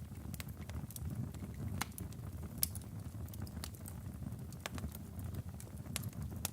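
Wood fire burning in a fireplace: a steady low rumble of the flames with irregular sharp crackles and pops from the logs, a few louder snaps among them.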